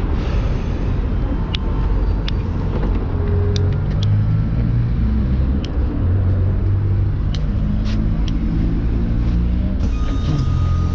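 City bus engine running with a low rumble, heard from inside the bus, its pitch shifting now and then, with a few short clicks and rattles.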